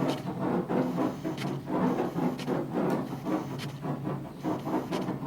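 Steel ball rolling through the sand over the plywood bottom of a magnet-driven sand table: a continuous rumble with frequent irregular clicks, which the builder finds pretty noisy.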